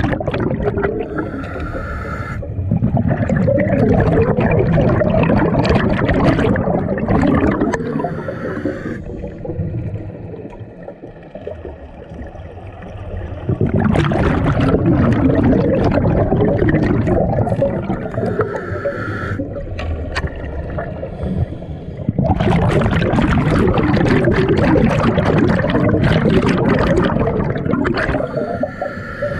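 Scuba breathing heard underwater through a regulator: a short hissing inhale, then several seconds of exhaled bubbles burbling out, three times over with a quieter lull in between.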